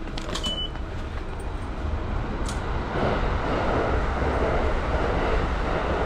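Steady low rumbling background noise that grows louder about halfway through, with a few clicks and one short high electronic beep near the start.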